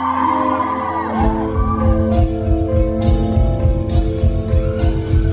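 Live rock band playing: sustained chords at first, then about a second in the drums and bass come in with a steady beat and regular cymbal hits.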